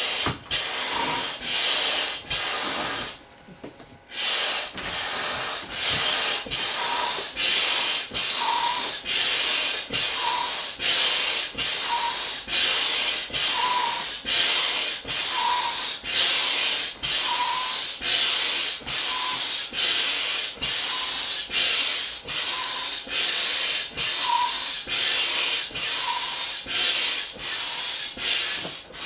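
Hand air pump being worked steadily, about one stroke a second, each stroke a rush of air with a brief squeak in most of them, as it inflates a large inflatable flamingo float. The pumping stops briefly about three seconds in, then runs on evenly.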